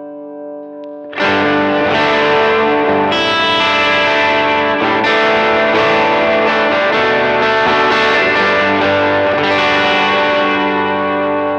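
Electric guitar through the Very Good Amp Co EP Drive overdrive pedal. A chord rings quietly at first, then about a second in a loud overdriven chord is struck and left ringing, with a few more strums, before it begins to fade near the end.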